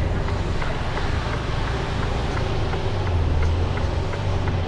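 Diesel engine of a Mercedes-Benz Antos 1824 18-tonne lorry running low and steady during a slow reversing manoeuvre, heard from inside the cab, with a regular light ticking about two or three times a second.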